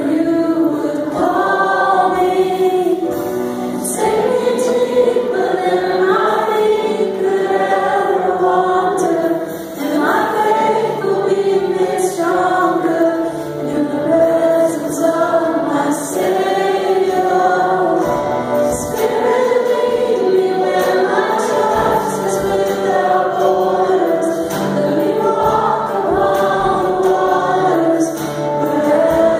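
A choir of mixed voices singing a Christian worship song in long held notes, with a live band backing it.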